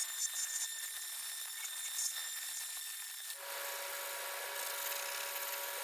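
Fiber abrasive wheel spinning on a power tool and rubbing rusted steel parts clean after a rust-remover soak: a steady whine with a rubbing hiss and small ticks. A little past halfway the sound turns fuller and deeper and then holds steady.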